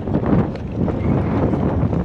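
Wind buffeting the microphone, with the steady noise of the boat and sea beneath it.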